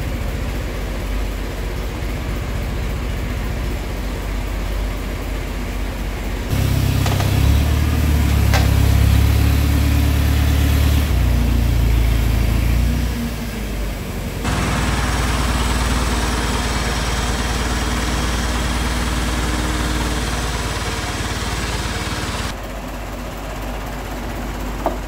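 Forklift engine running steadily under lifting work, its level and tone jumping abruptly several times, with a couple of light metal clanks.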